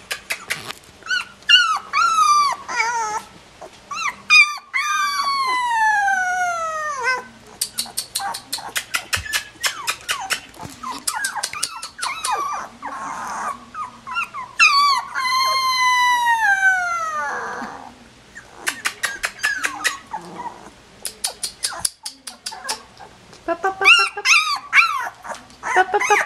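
Sixteen-day-old collie puppies whining and yipping. Two long howl-like whines slide down in pitch, about four seconds in and again near the middle, with many short squeaky yips between them and a quick run of them near the end.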